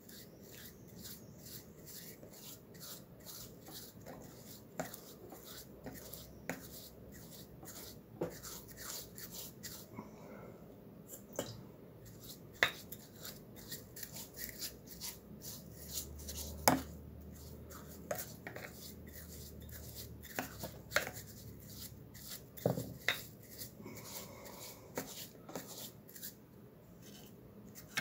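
Brush scrubbing cleaning agent into the dirty metal casting of a vintage Suffolk engine: quick, scratchy back-and-forth strokes, with a few sharper clicks as the brush knocks against the metal.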